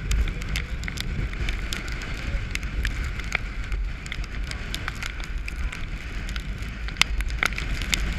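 Strong gale wind buffeting the microphone over the rush of waves along a heeling sailboat's hull, with many scattered sharp ticks throughout.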